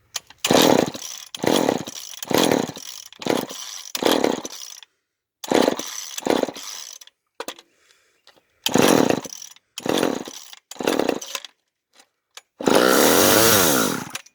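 Long-unused two-stroke chainsaw being pull-started: a string of short sputtering bursts as the engine pops and tries to fire. Near the end it catches for about a second and a half, revving up and down, then cuts out. The owner puts its trouble down to fuel not getting up into the carburetor.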